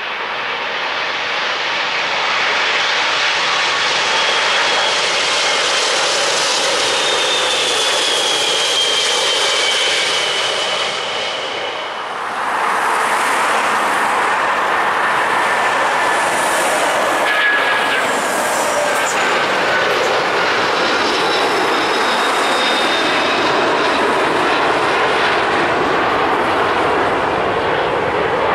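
Boeing 747-400 with Rolls-Royce RB211 engines passing low overhead on landing approach: a steady jet roar with an engine whine that falls in pitch as it goes by. About twelve seconds in, after a cut, a second 747-400 on take-off: a loud jet roar at climb-out thrust.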